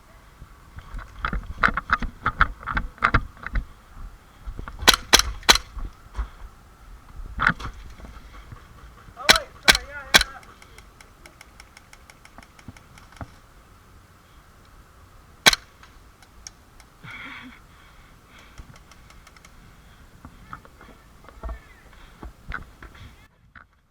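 Shots from a KWC Desert Eagle CO2 airsoft pistol: three sharp shots in quick succession about five seconds in, three more around nine to ten seconds, and a single shot later on. Quick ticks and thumps come before the first shots.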